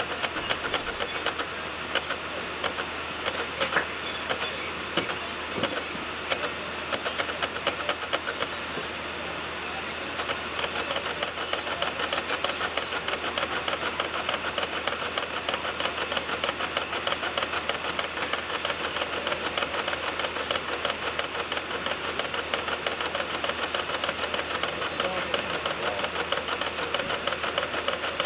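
A DVD drive clicking and spinning as it reads program files from a burned DVD, with clicks over the steady hiss of the spinning disc. The clicks are scattered and uneven at first, then from about ten seconds in they come quickly and fairly evenly.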